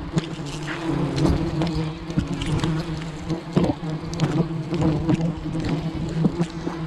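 A swarm of giant honey bees buzzing close by, a steady droning hum. Many short clicks and knocks sound over the hum.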